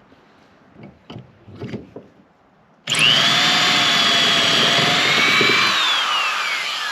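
A few light knocks, then an electric power drill starts abruptly and runs steadily in wood with a high motor whine. Near the end it is released and the whine falls in pitch as the motor spins down.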